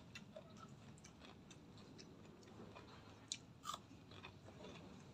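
Faint chewing of a mouthful of rice and raw vegetables, with a couple of short, sharp clicks about three and a half seconds in.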